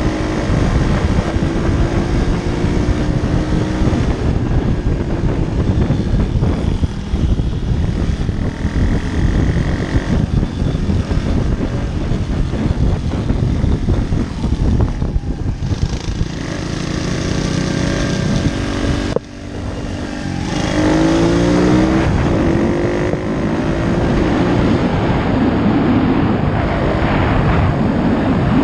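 Pit bike's single-cylinder four-stroke engine running under way, its note rising and falling with the throttle, with wind rushing over the helmet microphone. About two-thirds of the way through the engine note drops away sharply for a moment, then climbs again as the bike revs up.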